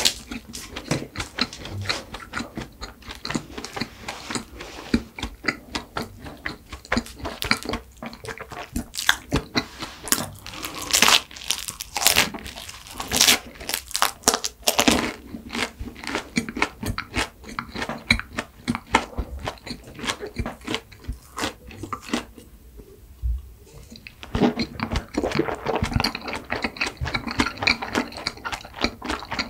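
Flaky pastry crackling as it is torn apart by hand, then crunchy chewing and biting of the flaky pastry in many rapid crackles. The crackles stop briefly about three-quarters of the way through, then start again.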